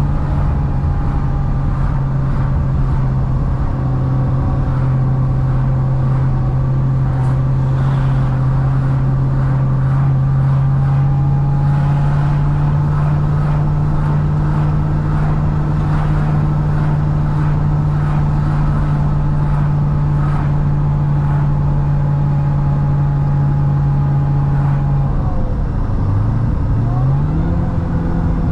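Supercharged 6.2-litre V8 of a C6 Corvette ZR1 running at a steady cruise with road noise, its drone holding one pitch. Near the end the engine note drops, then climbs again as the revs rise.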